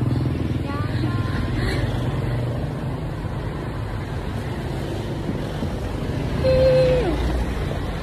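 Road traffic passing close by, heard with a heavy low rumble of wind on a phone microphone while cycling. About two-thirds of the way through, a short held tone sounds and drops in pitch at its end.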